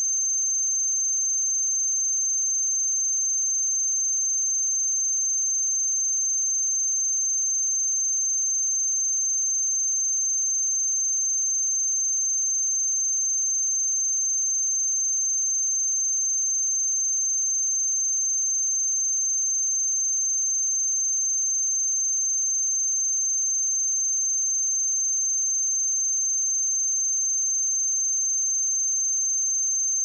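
Pure 6288 Hz sine-wave test tone: a single high tone held steady at one pitch and one level.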